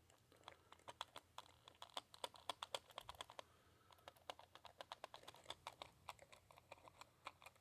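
Faint, irregular light clicks and taps, several a second, stopping and starting.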